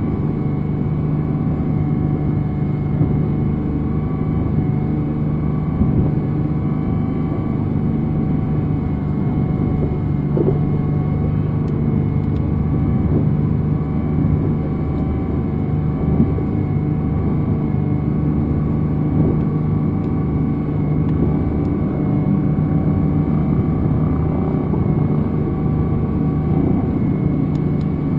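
Motorboat engine running at a steady speed under way: a constant low drone with steady humming tones, unchanging throughout.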